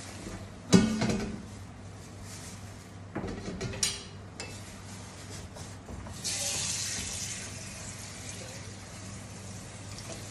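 Dishes being washed at a kitchen sink: a metal pot clanks loudly and rings about a second in, more pots knock together around three to four seconds, and from about six seconds the tap runs steadily into the sink.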